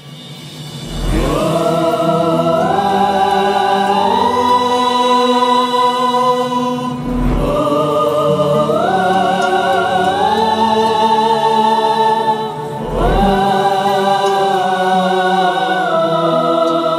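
Music intro: wordless choir-like voices holding long notes that step upward in phrases, over a deep drum boom three times, about six seconds apart.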